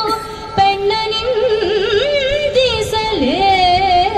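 A woman singing a Kannada verse in Carnatic style, her voice moving in ornamented, wavering glides and held notes over a music accompaniment.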